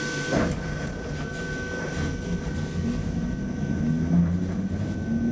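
Inside an A30B tram pulling away from a stop: a knock just after the start, then a low running rumble with the traction motors' hum rising in pitch as it picks up speed, over a steady high electrical whine.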